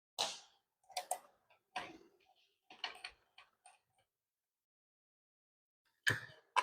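Light, scattered clicks and taps as the blade, holder flange and bolt are handled and fitted onto the arbor of a DongCheng DCMY02-185 brushless circular saw: about six clicks in the first three seconds, a pause, then a couple more near the end.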